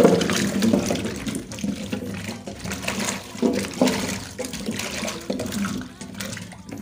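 Water sloshing and splashing in a stainless steel sink as a hand swishes and rubs a batch of peeled matooke (green cooking bananas) to rinse them, loudest at the start.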